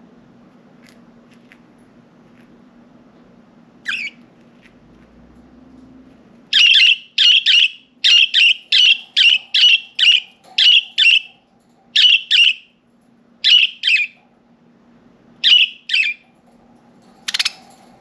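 Pet budgerigar calling: a few soft chirps, then a run of loud, sharp, repeated calls at about two a second for some ten seconds, and one last short call near the end.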